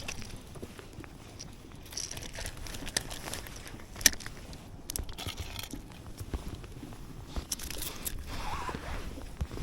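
Scattered small clicks, rustles and crinkling handling noises, with one sharper click about four seconds in.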